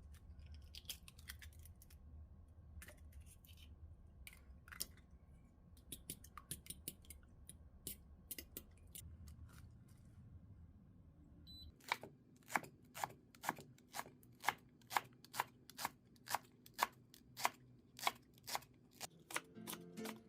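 Food being cut in the kitchen: scattered sharp cutting clicks at first, then from about halfway a steady run of about two cuts a second.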